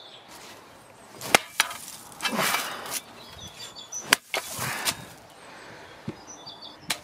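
A few sharp cracks or knocks, the loudest about four seconds in, with short crunching rustles between them.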